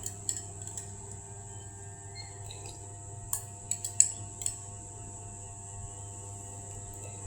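A spoon clinking against an ice cream cup or dish: several short, light clicks, the loudest about four seconds in, over a steady background hum.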